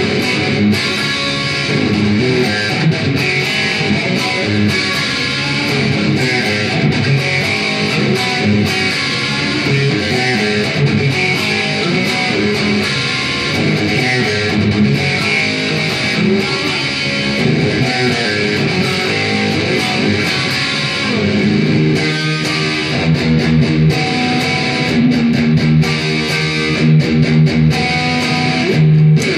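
Electric guitar, a replica Kramer 5150 Baretta with a Seymour Duncan JB humbucker and Floyd Rose tremolo, played through a Marshall VS265 Valvestate amp with reverb. Continuous runs of picked notes and riffs, ending on a low note held for several seconds.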